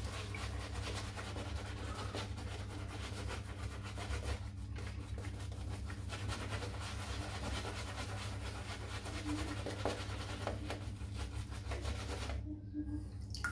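Shaving brush scrubbing thick shaving-soap lather onto a bare scalp: a steady wet rubbing and scratching, with a brief pause near the end.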